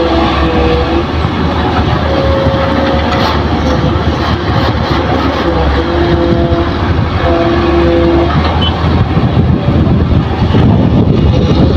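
Hitachi hydraulic excavator working as it loads fill soil into a dump truck: the diesel engine runs loud and steady under load, and a held whine comes and goes in stretches of a second or two as the hydraulics swing and tip the boom and bucket.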